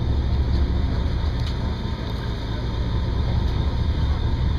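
Steady low rumble of a boat's engine running.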